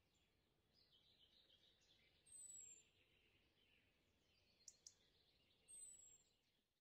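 Near silence with a faint bird chirp, a short falling high whistle heard twice, and two faint ticks in between.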